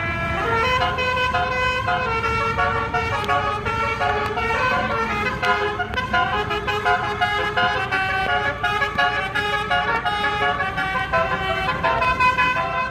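Bus 'telolet basuri' musical horn playing a tune in quick stepped notes, with a low rumble underneath.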